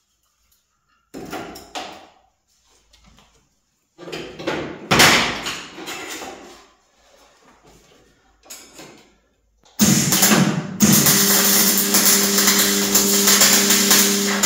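Sheet-metal parts knocking and clattering as they are handled. About ten seconds in, a loud, steady hissing buzz of welding on the stainless-steel chimney cap begins, breaks off briefly and runs on.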